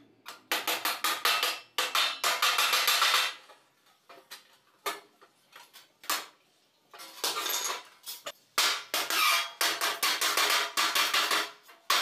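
Wooden mallet rapidly striking the folded seam edge of a galvanized sheet-steel duct offset, closing the seam. The strikes come in fast runs with a gap of a few seconds in the middle, broken only by one or two single blows.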